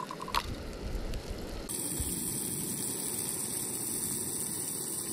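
Chanterelle mushrooms sizzling in butter in a small pan over a backpacking canister stove: a steady frying hiss that gets much louder and brighter about a second and a half in.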